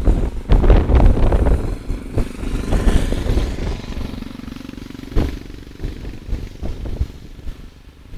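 A motor vehicle passes by, its engine note holding steady for a couple of seconds in the middle. Wind buffets the microphone in the first two seconds, and there is a single sharp knock about five seconds in.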